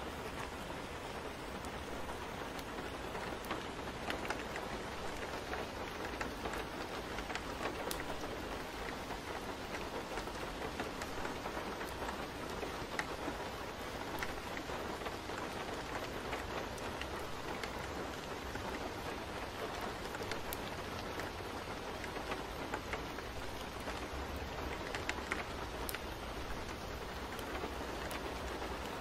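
Steady rain: an even hiss of falling rain with scattered sharp drop ticks, unchanging throughout.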